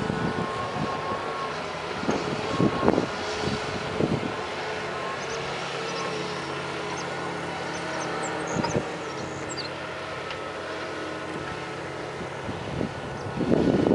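John Deere excavator's diesel engine running steadily under a hydraulic whine, with a few sharp knocks and clanks from the working machine. It gets louder near the end.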